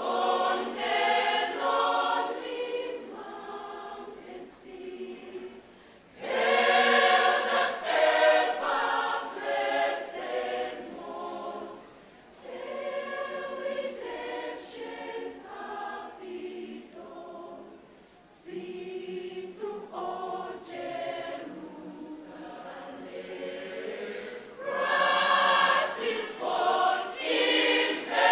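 Large choir singing a Christmas carol in phrases, with short breaks between them. It is louder at the start, through a long passage from about six seconds in, and again near the end, and softer in between.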